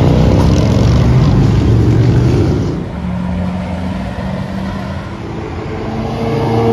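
A big touring motorcycle's engine rumbling loud as it rides past, falling away about three seconds in. Quieter passing-car traffic follows, with another car's engine growing louder near the end.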